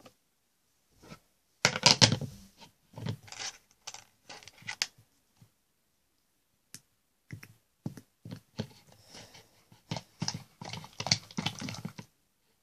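Slime being stirred and poked with a plastic spoon in a plastic tub: irregular sticky clicks and squelches with short pauses between, loudest about two seconds in.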